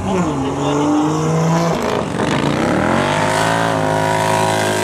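Large twin-cylinder bagger motorcycles racing. The engine note drops as the revs come down at the start, then climbs steadily from about two seconds in as the bike accelerates, and holds at high revs near the end.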